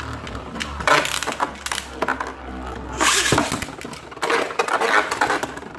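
Two Beyblade Burst spinning tops, Cho-Z Valkyrie and Cho-Z Spriggan, clashing and scraping against each other: fast, irregular clicks and rattles with louder bursts of scraping at intervals.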